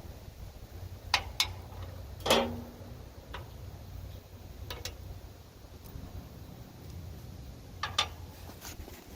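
Scattered metallic clicks and clanks from hand tools and mower parts being handled, over a low steady rumble. The loudest clank comes about two seconds in and rings briefly.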